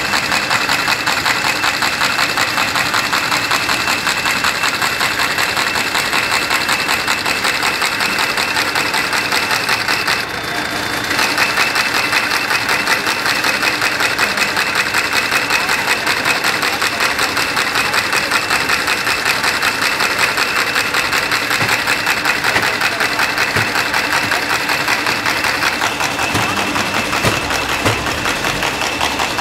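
Paper-processing machine with rollers and conveyor belts running, a steady fast mechanical clatter with a thin high whine over it. The sound drops briefly about ten seconds in, then resumes.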